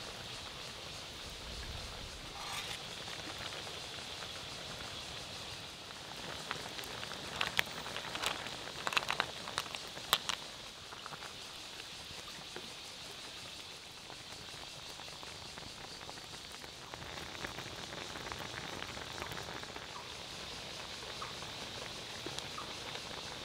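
Pot of coconut-milk noodle broth boiling over a wood fire, a steady fizzing, rain-like bubbling. A quick run of sharp clicks and taps stands out in the middle.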